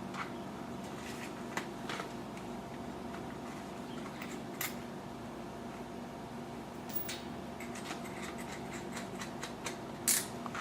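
Steady low hum with a few faint, sharp clicks spread through it: small metal taps from a tap and die kit being handled.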